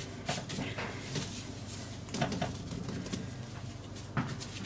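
Sticky yeast bread dough being kneaded by plastic-gloved hands on a floured worktop: an uneven run of soft pushes and slaps as the dough is pressed and turned.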